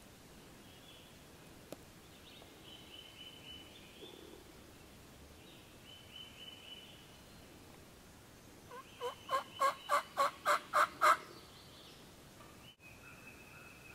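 Wild turkey gobbler gobbling once, a rapid rattling run of about ten notes over roughly two seconds that grows louder toward its end, a little past halfway through.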